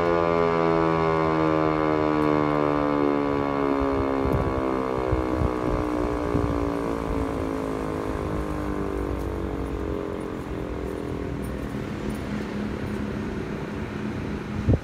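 American Signal T-121 electromechanical outdoor warning siren winding down after its test alert. One steady note slides down in pitch and fades away over several seconds.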